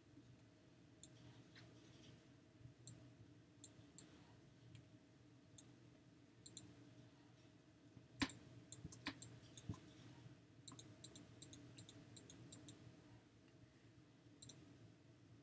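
Faint, irregular clicks of a computer mouse, spaced apart, with a quick run of them between about ten and thirteen seconds in and the loudest one a little after eight seconds, over a low steady hum.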